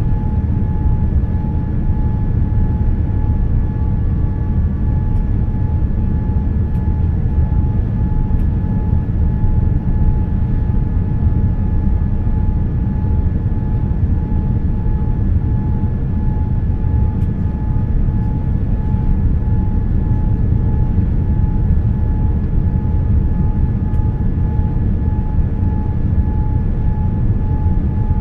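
Cabin noise inside a Boeing 787-9 on approach with its flaps extended: a steady, loud low rumble of engines and airflow, with a thin steady whine above it.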